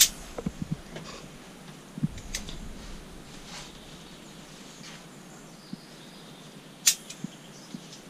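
A few sharp clicks and knocks from a climbing harness being buckled and adjusted and its carabiner lanyard handled, the loudest about seven seconds in, with soft thuds on wooden decking.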